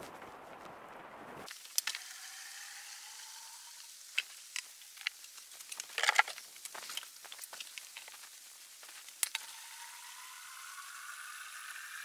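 Windshield washer fluid poured from a plastic jug into the sawmill's blade-lubrication water tank, its tone rising as the tank fills, mixed with clicks and knocks from the tank cap and jug being handled, the loudest cluster of knocks about six seconds in.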